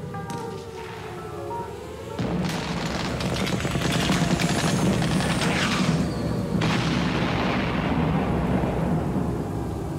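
Stage music: a few sustained tones, then about two seconds in a loud, deep booming rumble breaks in and slowly dies away from about seven seconds on.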